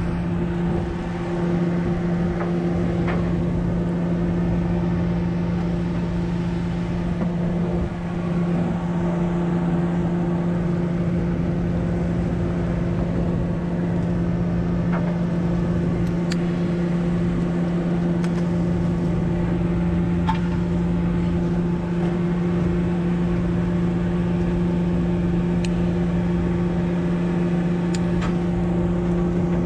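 Steady drone of the party boat's engine running, a low hum with a higher overtone over a low rumble, with a few faint ticks scattered through it.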